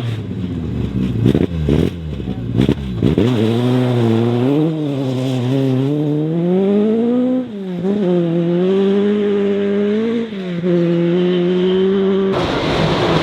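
Rally car engine under hard acceleration, its revs climbing and dropping again and again through gear changes, with a few sharp cracks in the first three seconds. About twelve seconds in, a rougher, noisier car sound abruptly takes over.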